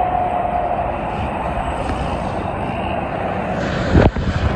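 Steady highway traffic noise from heavy trucks and cars passing at speed: tyre hiss and engines, with some wind on the microphone. A steady whine fades out in the first second, and a brief loud thump comes about four seconds in.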